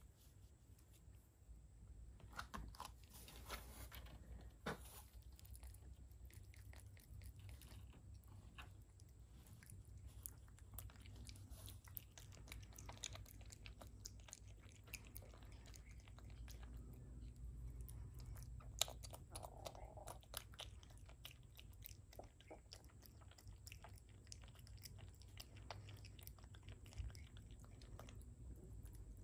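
Common brushtail possum chewing and biting a piece of frozen lady finger banana: quiet, crunchy chewing made of many small irregular clicks, starting about two seconds in.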